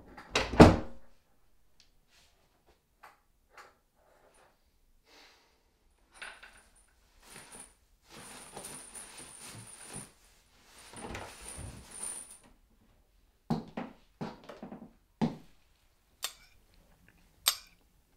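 An interior panel door shutting with a loud thud about half a second in. Scattered faint clicks and a stretch of soft rustling follow, then a run of sharp knocks and clicks in the last few seconds.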